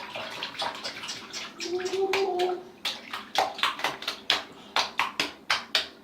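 Bathwater sloshing and splashing in a tub as a cat is washed, turning in the second half into a quick run of repeated splashes, about two or three a second. A short wavering cry sounds about two seconds in.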